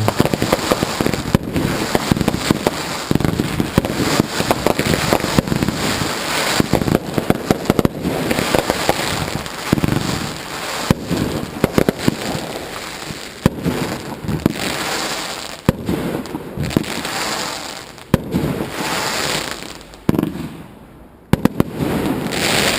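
Dense barrage of consumer fireworks going off: rapid bangs over continuous crackling. It thins out about twenty seconds in, with a few last bangs near the end.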